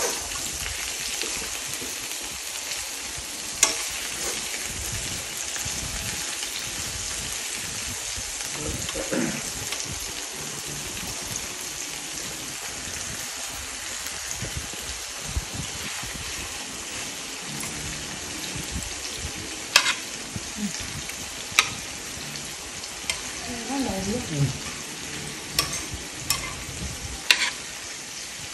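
Thin-sliced beef and vegetables sizzling steadily in a frying pan on a portable gas stove. A utensil clicks sharply against the pan a few times as the meat is turned.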